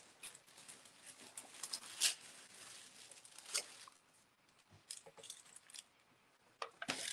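Large sheet of carbon paper rustling and crinkling as it is unfolded and smoothed flat by hand, in short scattered bursts.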